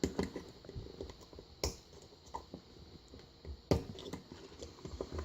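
Scattered small metallic clicks and knocks of a Kwikset pin-tumbler lock cylinder being handled and worked with its key and a screwdriver. Three sharper clicks stand out: at the start, about a second and a half in, and near four seconds.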